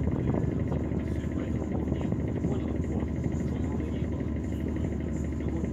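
Steady low rumble of an excursion motor ship's engine, heard on board while the ship is under way.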